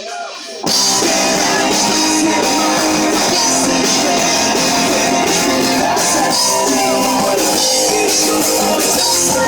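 Live rock band playing loudly with drum kit and electric guitars. The full band crashes in less than a second in after a brief, thinner passage without bass.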